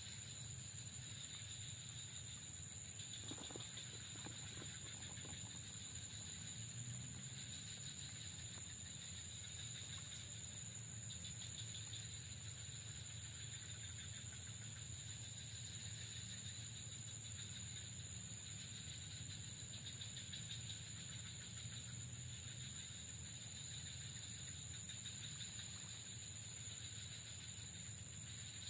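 Steady high-pitched chorus of insects over a low, even rumble, continuing without a break.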